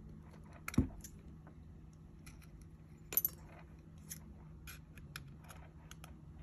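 Scissors cutting a thin metal tuna can lid, giving sharp metallic clicks and clinks. The loudest comes about a second in, another with a brief ring around three seconds, then a run of lighter clicks.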